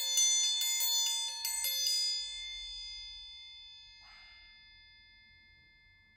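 Metal triangle rolled rapidly with its metal beater, about five strikes a second, stopping about two seconds in; it then rings on and slowly fades.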